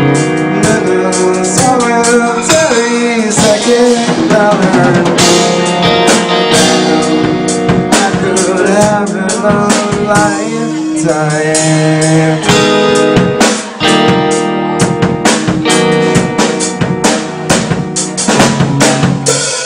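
Rock band playing live: two electric guitars and a drum kit, with frequent drum and cymbal hits under the guitars.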